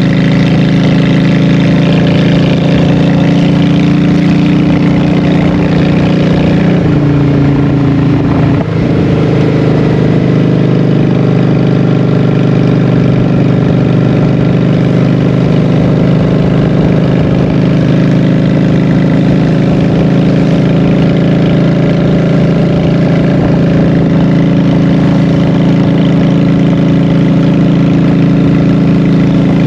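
Honda Shadow 750's V-twin engine through Vance & Hines Short Shots exhaust pipes, running loud and steady while riding. The pitch steps down about seven seconds in with a brief dip shortly after, then holds steady.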